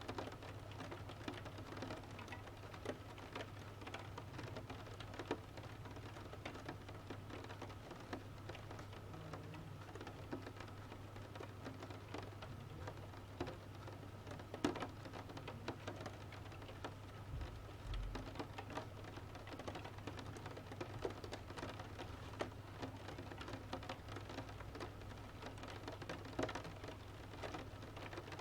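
Rain pattering on a window while a wood-burning stove crackles: a steady hiss of rain scattered with irregular small pops and clicks, one sharper pop about halfway through. A steady low hum runs underneath.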